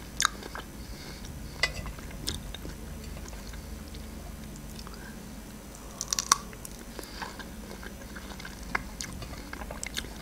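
Close-up chewing of strawberries, with scattered sharp wet clicks; a bite into a strawberry about six seconds in is the loudest moment.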